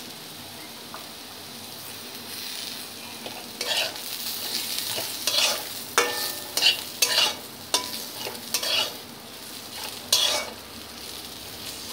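Potato sticks sizzling in oil in a steel kadai while a metal spatula scrapes and turns them. For the first few seconds only a steady sizzle is heard; then quick, irregular scraping strokes start, and one stroke about six seconds in rings briefly.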